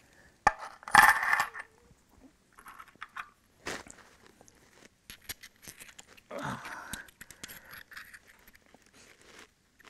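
Knapped stone flakes and core clicking and clinking together as they are handled and fitted against each other, with a loud clatter about a second in and scattered lighter clicks after.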